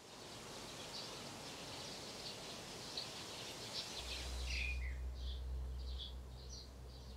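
Small birds chirping and calling over a steady outdoor hiss. About four seconds in, a low steady rumble joins.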